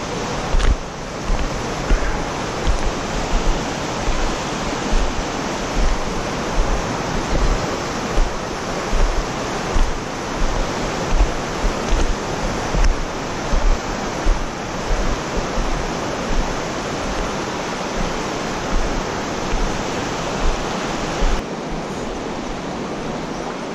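Rushing water of a fast, rocky creek, a steady loud hiss, with low thumps about once a second from footsteps on the stony bank. The thumps stop near the end, leaving only the water.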